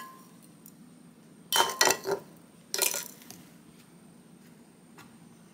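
Kitchen utensils and dishes clinking and clattering in two short spells, about one and a half and three seconds in.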